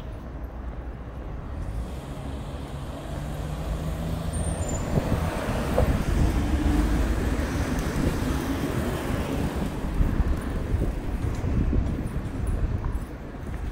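Street traffic: a motor vehicle's engine passing close by, growing louder to a peak in the middle and fading near the end.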